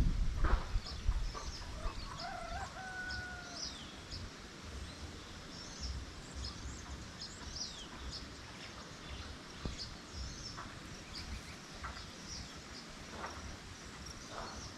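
A rooster crows once about two seconds in, a wavering call ending on a held, slightly falling note, while small birds chirp high and short. A low rumble of wind on the microphone runs underneath, with a thump at the very start.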